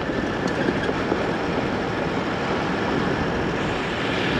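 Toyota LandCruiser 79 Series four-wheel drive travelling slowly over a rough, corrugated gravel road. The tyres, run at lowered pressure, make a steady rumble on the loose gravel along with the running of the vehicle.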